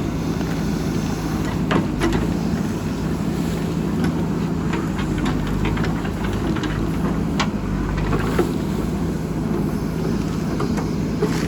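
JCB backhoe loader's diesel engine running steadily, with scattered sharp clicks and knocks over it from the machine at work.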